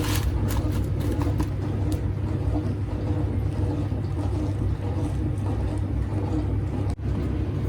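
A steady low rumble, with a brief dropout about seven seconds in.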